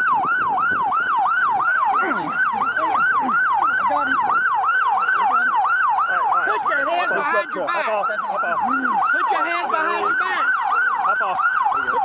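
Police siren in fast yelp mode, its tone sweeping up and down about three times a second without a break; a second siren briefly overlaps about seven seconds in.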